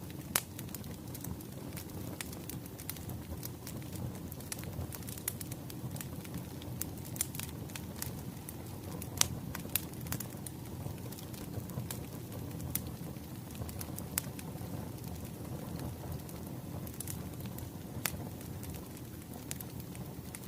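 Wood fire crackling: irregular sharp pops and snaps over a steady low rush.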